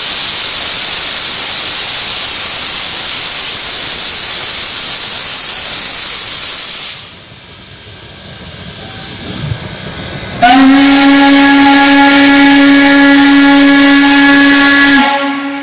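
Shay geared steam locomotive venting steam in a loud, steady hiss for about seven seconds. After a short lull it sounds its steam whistle in one long, steady blast of about four and a half seconds.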